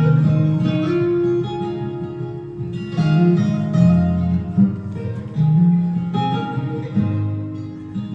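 Acoustic guitar music, strummed and plucked chords with a new chord struck every second or so.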